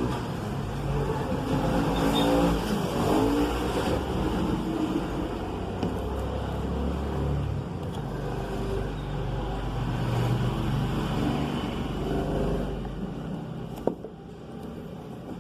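A motor vehicle's engine running, swelling and fading in level, with a single sharp click near the end.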